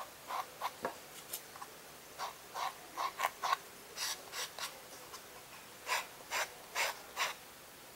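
Light, short brushing strokes of a small paintbrush dabbing and rubbing paint onto a craft piece, irregular, about two or three a second.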